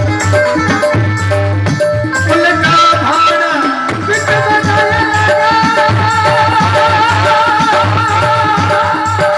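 Indian folk devotional bhajan music: a steady drum beat with rattling percussion, and a long wavering melody line held from about two seconds in.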